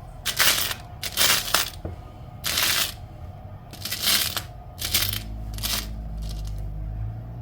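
Small charms rattling and clinking in short bursts as fingers rummage through a pile of them, about six bursts. A low steady hum comes in about five seconds in.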